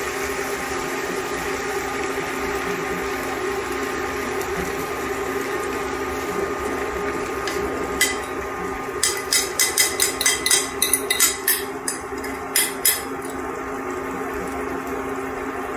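Beaten eggs sizzling as they are poured over spinach in a hot skillet, over a steady hum. From about halfway through, a utensil taps and scrapes rapidly against the bowl to empty it, in a quick run of sharp clinks.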